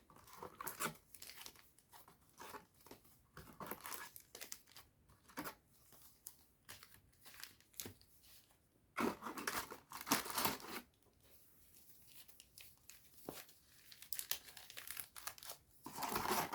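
Plastic packaging of trading-card booster packs crinkling and tearing as the booster box is opened and the packs handled. The sound comes in irregular rustling bursts, busiest about nine seconds in and again near the end.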